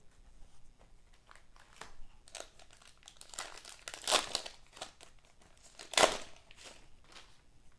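Crinkling of a basketball card pack's wrapper being handled, in scattered bursts, with a sharp loud rip about six seconds in as the pack is torn open.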